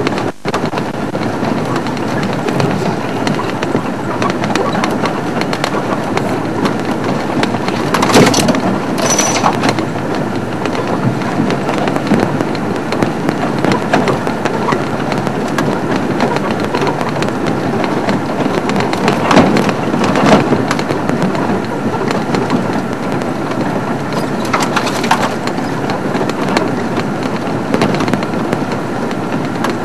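Open safari vehicle driving along a rough dirt bush track: a steady, noisy engine and road rumble, with a few sharp knocks and rattles as it jolts over bumps, two near a third of the way in and more about two-thirds through.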